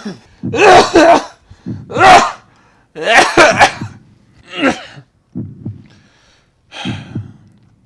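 A man with a cold coughing hard in a fit of about seven harsh coughs. The loudest come in the first few seconds, and they grow weaker toward the end.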